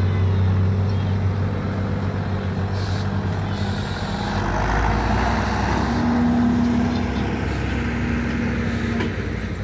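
Diesel truck engine running steadily at the pulling track, with a louder rush of engine noise around the middle.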